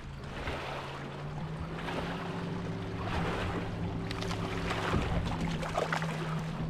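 Water splashing and sloshing around a kayak, with a steady low hum coming in about a second and a half in.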